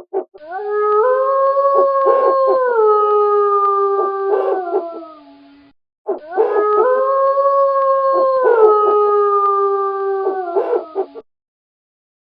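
Wolf howling twice, each a long howl of about five seconds that rises at the start, holds its pitch, then steps down partway through. Short, clipped calls break in over the howls.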